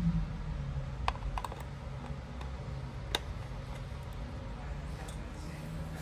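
Scattered sharp plastic clicks and taps as a cable plug is worked into the socket on a patient lift's control box: a small cluster about a second in and a single click near the middle, over a low steady hum.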